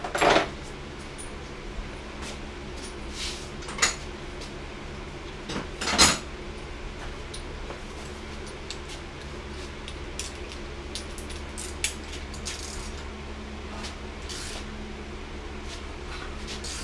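Metal tools clinking and knocking now and then while the engine is turned over by hand, with two sharp knocks, one near the start and one about six seconds in, and a few short hisses later on. A steady low hum runs underneath.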